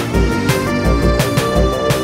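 Background music: an electronic track with a steady driving beat of kick drum and snare.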